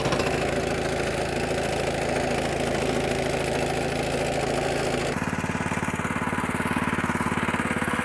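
An engine running steadily, with its note changing abruptly about five seconds in to a more evenly pulsing run.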